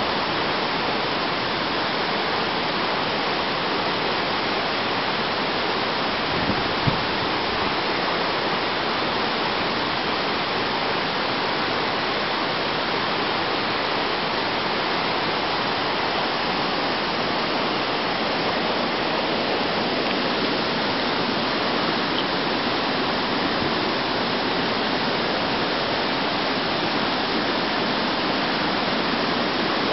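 Steady rushing of a mountain stream, with one brief knock about seven seconds in.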